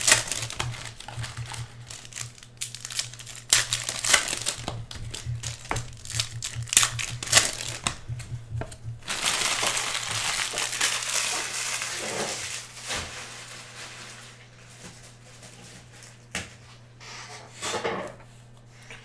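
Trading-card pack wrappers crinkling and tearing as hobby-box packs are ripped open, with dense crackling for the first several seconds, a longer rustle after that, then a few quieter rustles. A steady low hum runs underneath.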